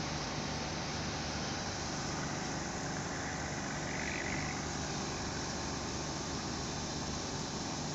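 Steady outdoor background noise with a low hum underneath and no distinct events.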